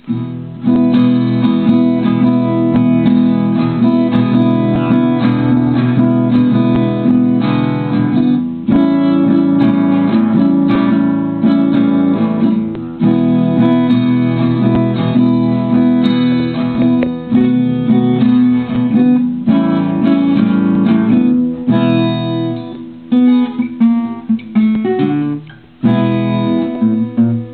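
Acoustic guitar strummed, playing a blues chord pattern with no singing.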